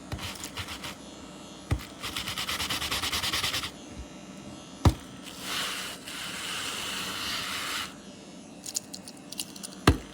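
Scraping and rubbing sounds of objects being handled, with a fast rhythmic rasp about two seconds in, a longer hiss-like scrape in the middle, and three sharp knocks.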